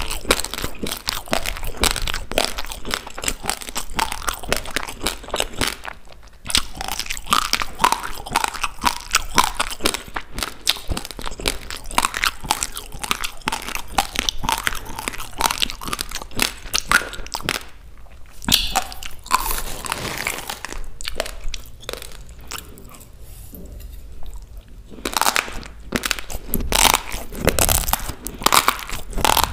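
Close-miked chewing of dry raw rice: a dense run of sharp, gritty crunches as the grains are bitten and ground between the teeth, thinning out to a quieter lull about three-quarters of the way through.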